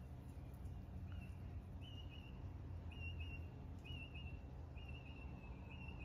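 A bird calling with short, high whistled notes, repeated about once a second from about a second in, over a steady low rumble.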